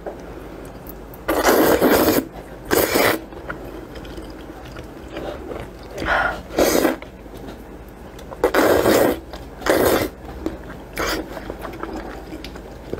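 A person slurping soupy noodles with loud, noisy slurps of half a second to a second each. There are about six of them, irregularly spaced, with quieter pauses between.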